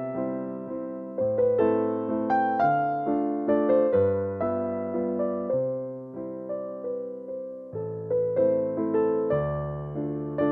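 Background piano music: a slow, gentle melody of struck notes over low bass notes, each note ringing and fading away.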